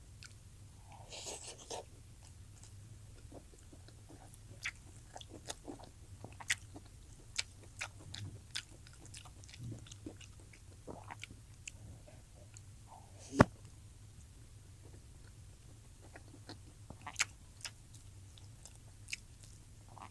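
Close-up mouth sounds of a person eating: wet chewing with many small lip smacks and clicks, and one sharp, loud click about halfway through.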